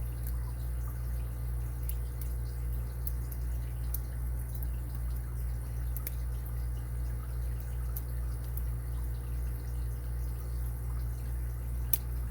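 Faint, irregular metallic clicks of a lock pick and tension wrench working the pins of an Abus 80 Ti padlock during single-pin picking, one sharper click near the end, over a steady low hum.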